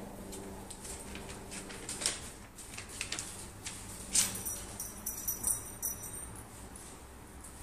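Whippet puppies playing on a hard floor: scattered clicks and scuffs of their claws and paws. There is a light metallic jingle for a couple of seconds about halfway through.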